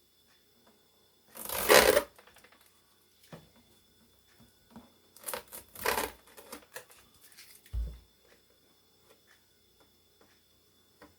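Packaging rubbing and rustling in two loud bursts as the boxed air fryer is handled, with smaller rustles between and a short dull thump about eight seconds in.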